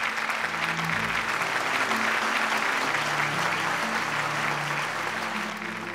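Studio audience applauding steadily, fading toward the end, over soft background music with long held low notes.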